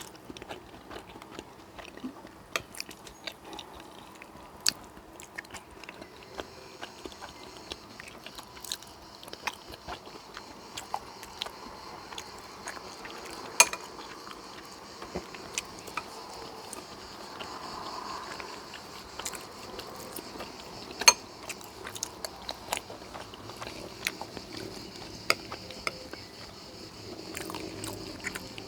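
Close-up chewing and wet mouth sounds of a person eating soft sweet potato and fried egg, with many small clicks and now and then a sharper click. A faint steady hiss comes in about six seconds in.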